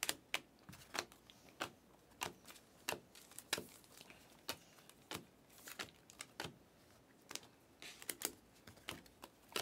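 Stiff glossy Panini Select trading cards being slid off the front of a stack one after another, each card making a light click or snap as it comes free. The clicks come at an uneven pace, about one or two a second.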